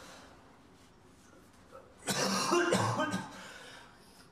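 A man coughing hard in pain, one harsh cough about two seconds in that lasts about a second and tails off; he has bruised, fractured ribs.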